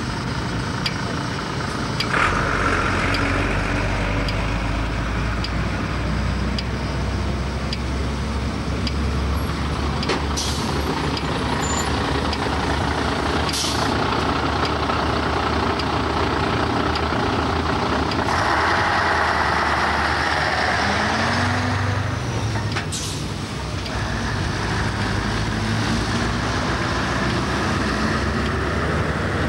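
Road vehicle engines running and passing at a level crossing, a steady rumble with hiss. A louder hiss comes about two-thirds of the way through.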